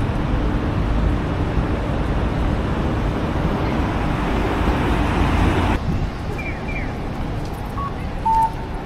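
Street traffic noise, a steady rush of passing cars, which drops off abruptly about six seconds in to quieter street ambience with a few short electronic chirps and a brief beep near the end.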